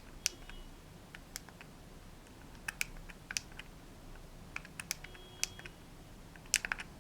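Light, irregular clicks, about a dozen spread out, some in quick pairs and a cluster near the end, from buttons being pressed on a small handheld music player while it is set to play over Bluetooth.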